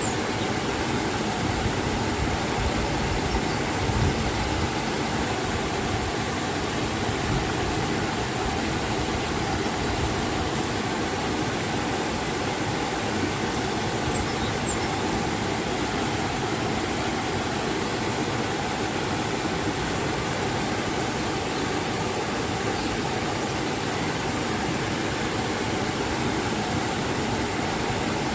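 Steady rush of a river and waterfall, the water's noise even and unbroken.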